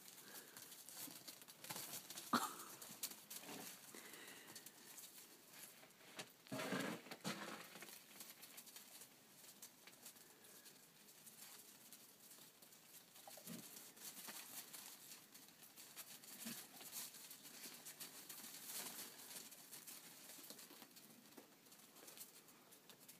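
Faint pattering and scuffling of Nigerian Dwarf goats and a dog moving and playing on packed snow. A few short louder sounds stand out, the loudest about two seconds in and a longer one around seven seconds.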